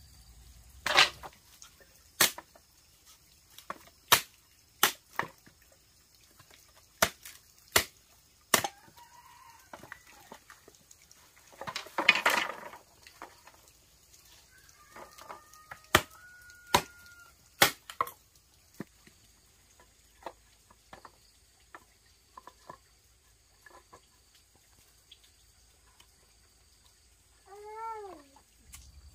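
A series of sharp knocks or taps, about a dozen of them spread over the first eighteen seconds, with a short noisy burst in between. Near the end comes one short animal call that rises and then falls in pitch.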